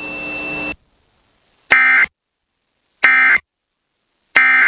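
Emergency Alert System end-of-message data bursts: three short, identical, harsh warbling digital chirps about 1.3 s apart, after a faint hiss with a thin high tone in the first second. The bursts are the coded signal that the alert broadcast is over.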